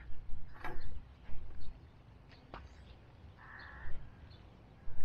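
A few short knocks and rustles in the first second, then one short harsh bird call about three and a half seconds in, over a low steady rumble.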